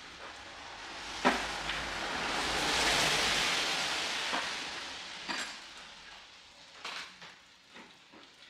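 A few sharp clinks of hand tools being set into a plastic toolbox, over a hiss that swells and fades in the middle.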